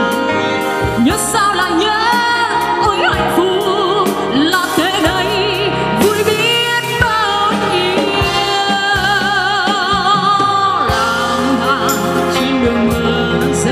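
A woman singing a slow ballad into a microphone with a live band: her long held notes waver with vibrato over keyboard chords and drums.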